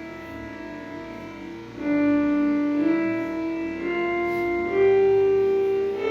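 Background music: sustained instrumental notes, with a melody line stepping upward note by note from about two seconds in.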